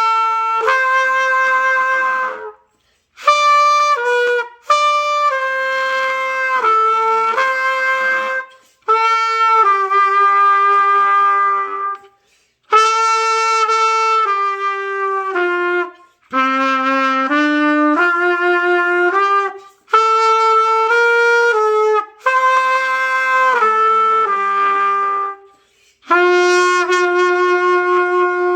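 Beginner's trumpet playing a slow hymn tune in short phrases of held notes, with brief breaks between phrases.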